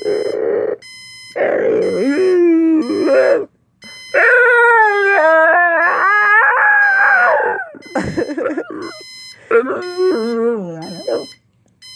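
Pitbull howling and whining in several long, wavering cries, set off by an alarm clock that beeps in a steady on-off pattern behind him.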